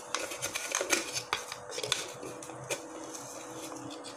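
Rapid light clicks and rattles of kitchen items being handled as salt is fetched, thickest in the first three seconds and thinning out after, over a faint steady hum.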